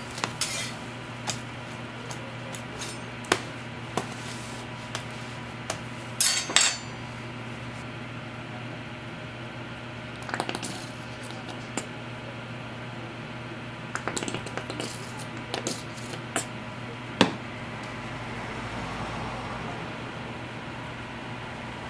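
Metal tongs and a spatula clicking and clacking against a flat steel griddle and the bread on it. The clicks come thick and fast in the first seven seconds, then sparser, over a steady low hum.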